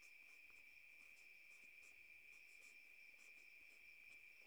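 Near silence with a faint steady high-pitched insect trill in the background, and faint scratches of a felt-tip marker writing on paper.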